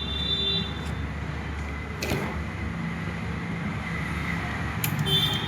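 Luminous 1050 W inverter on the bench with a steady low hum, a single sharp click about two seconds in, and its buzzer beeping near the end.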